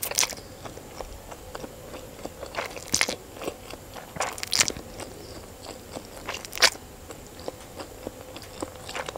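Close-up eating sounds of a mouthful of instant noodles: several short, sharp slurps as strands are sucked in, the loudest about two-thirds of the way through, with soft wet chewing clicks between them.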